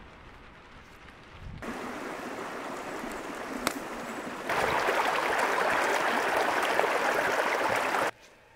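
Shallow creek water rushing over rocks, starting about a second and a half in. Halfway through it gets louder and closer as water rushes around a bottle held under the surface to fill it, then it cuts off suddenly near the end.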